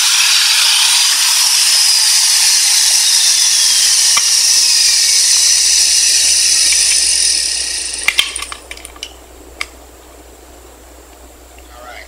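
Handheld electric router running and cutting the mortise for a lock in wood, then switched off and dying away about seven and a half seconds in, followed by a few light knocks.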